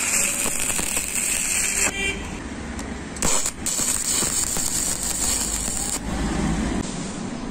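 Stick-welding arc crackling and hissing as the electrode burns on a steel plate. It breaks off about two seconds in, strikes again with a sharp crack, and stops for good about six seconds in.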